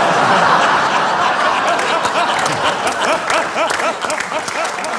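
Studio audience laughing loudly and at length after a punchline, with scattered clapping joining in about two seconds in.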